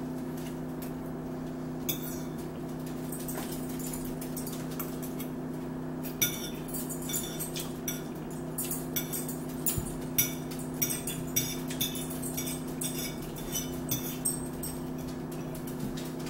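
Forks clinking and scraping on plates during a meal, with short sharp clicks coming thick and fast from about six seconds in, over a steady low hum.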